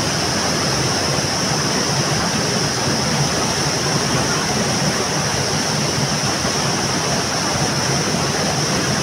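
Rushing water of a hill stream, a loud, steady rush with no breaks, with a steady high-pitched hiss above it.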